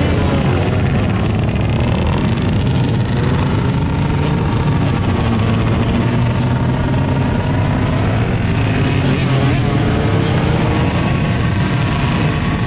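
Many dirt bike and motorcycle engines running together in a pack, a dense, steady engine noise with several pitches drifting up and down as riders rev.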